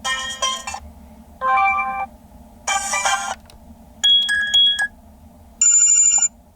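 Built-in ringtones of a Toscido X109 previewed one after another through its speaker: five short melodic chime snippets, each a different tone lasting under a second, with brief gaps between them.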